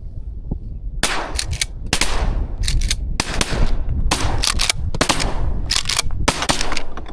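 Shotgun fire at flying waterfowl: a rapid run of many sharp blasts from about a second in, coming in quick clusters as several guns shoot.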